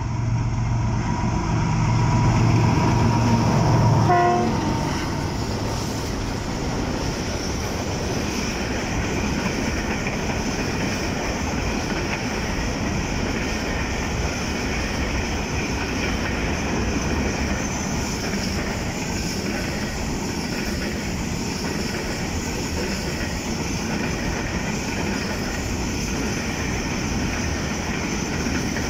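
Freight train passing close by: the locomotive's low engine hum and a short horn sound about four seconds in, then the steady rumble and clatter of the wagons rolling past.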